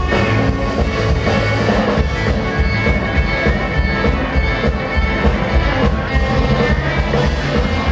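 Live rockabilly band playing, with upright double bass, drums and electric guitar over a steady beat, and no singing.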